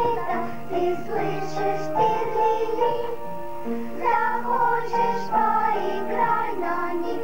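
Children's choir of girls singing a song together, with held melody notes over a sustained instrumental accompaniment.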